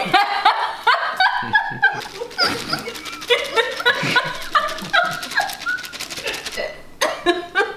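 Two women laughing hard together in high, breathless, yelping bursts.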